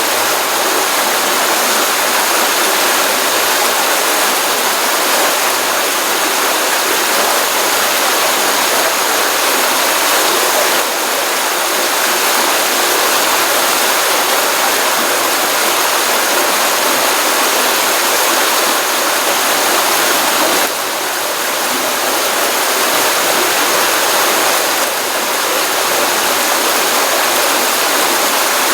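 Water of a small stream running out of a pond, a steady rushing with no pauses, dipping slightly in level three times.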